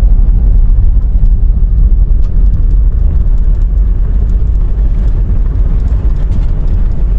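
Low, steady rumble of a vehicle driving, with faint light rattles over it.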